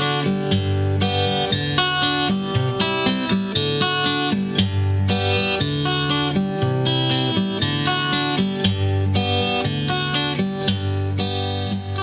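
Instrumental background music: plucked guitar notes over a bass line.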